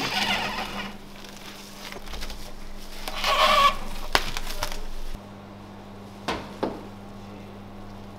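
Plastic cling film pulled from a tray-wrapping machine's roll and stretched over a tray of meat, crinkling, with a louder squeaky stretch about three and a half seconds in. After the sound drops about five seconds in, a couple of short knocks follow.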